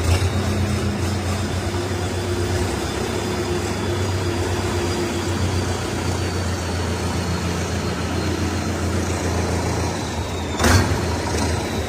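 Tractor diesel engine running steadily, with a faint high whine that slowly drops in pitch. A single sharp knock comes near the end.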